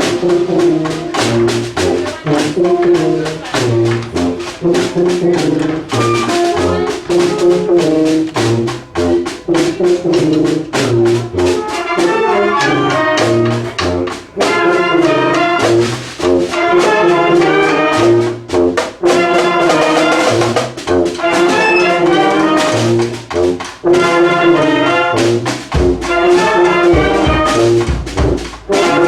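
Brass band playing a tune together: a held, repeated horn note over a rhythmic bass line, with short percussive hits throughout and a few deep thumps near the end.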